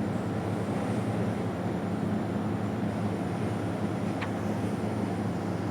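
A steady low rumbling noise, with one brief tick about four seconds in.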